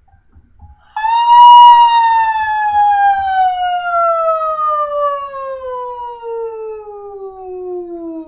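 A woman singing one long sliding vocal sigh, starting high about a second in and gliding steadily down in pitch: a descending breathing-sigh warm-up exercise.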